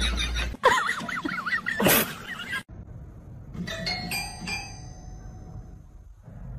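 A few notes struck on a small toy piano by a cat's paw, ringing out and fading, about halfway through. Before them, the loudest part is a run of wavering high-pitched vocal sounds with a bright hiss near two seconds in.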